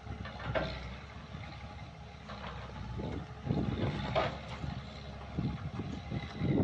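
Tracked hydraulic excavator's diesel engine running as the machine works in the mud, heard from a distance, with a few brief sharper sounds over the steady engine noise.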